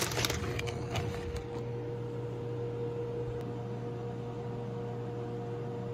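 Microwave oven starting up and running with a steady hum and a steady higher tone, after a few clicks in the first second or so.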